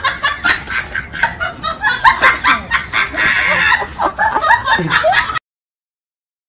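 A busy run of short, high-pitched vocal sounds mixed with clicks, cutting off abruptly about five seconds in, followed by silence.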